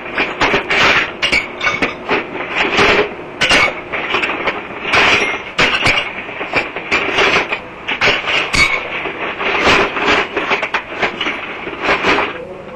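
Irregular knocking, banging and clattering, with short scraping bursts in between.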